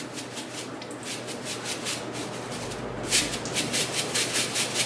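Wet long-grain brown rice shaken in a mesh strainer to drain it: a rhythmic swishing rattle of about seven shakes a second, louder from a little past halfway.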